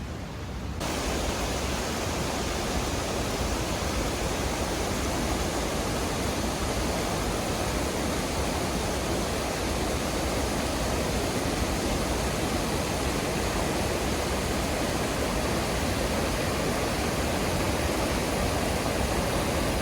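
Steady rushing of creek water pouring over small falls, an even wash of noise that starts suddenly just under a second in.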